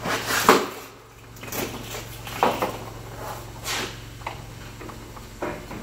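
Scattered knocks and clatter as a mechanic gets onto a creeper and works under the rear of a truck, over a steady low hum.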